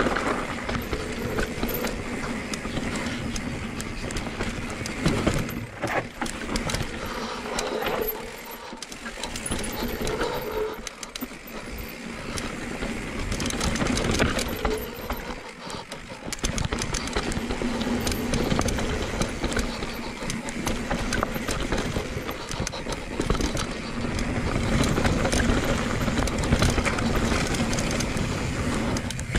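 Cube Stereo 170 full-suspension mountain bike riding fast down a rooty dirt trail: tyres rolling and scrubbing on dirt, with constant rattles and knocks from the bike over roots and bumps. The noise rises and falls with speed, easing for a moment a few times.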